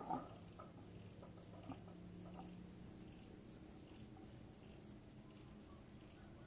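Near silence: faint room tone with a low hum and a few soft ticks.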